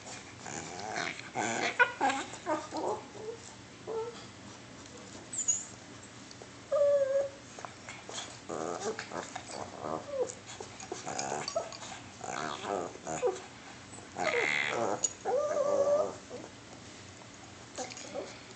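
Small dogs wrestling and play-growling, a string of short grumbles and whines, loudest about two thirds of the way through.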